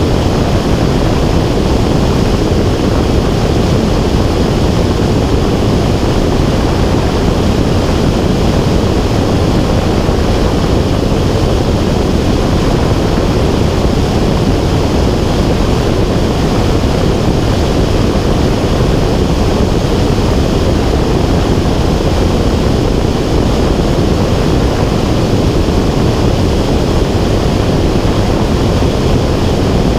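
Steady, loud rushing noise of air on a camera carried high in flight, even throughout with no distinct engine tone.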